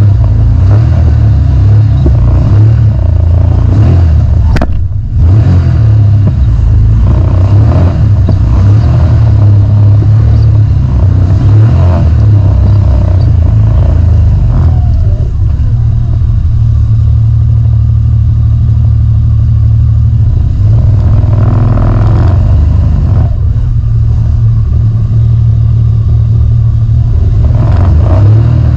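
Can-Am side-by-side UTV engine running as the machine drives, a loud, continuous drone that rises and eases with the throttle and holds a steadier note for several seconds past the middle.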